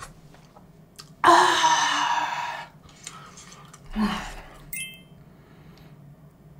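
A woman's long, loud voiced exhale as she stretches her arms, then a shorter vocal sound about four seconds in.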